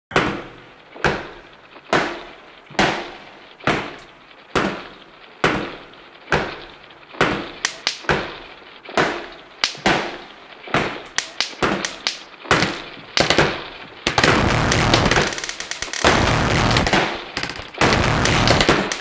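Heavy booming hits with long ringing tails, about one a second, quickening into a rapid run near the middle, then giving way to a loud, dense wall of sound about three-quarters of the way in.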